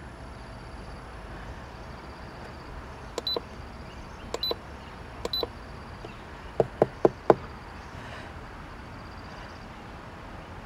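Car fridge control panel being operated: three short electronic beeps about a second apart, then four quick clicks in a row, as the temperature is set. A faint steady hum lies underneath.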